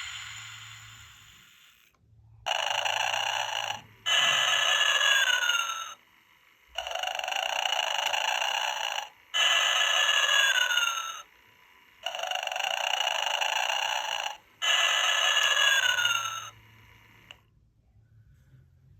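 Gemmy animated Santa and Mrs. Claus figures playing recorded snoring through small, tinny speakers. A rasping snore alternates with a louder snore carrying a whistle that slides down in pitch, three rounds in about fifteen seconds.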